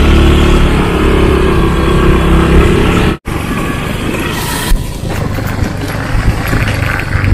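Motorcycle engine running steadily under way on a dirt road. About three seconds in the sound cuts out for an instant, then the engine and road noise carry on, rougher and less even.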